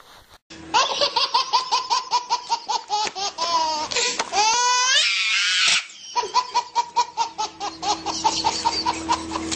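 A baby laughing hard, in quick repeated bursts of belly laughter, with a higher squealing stretch about halfway through.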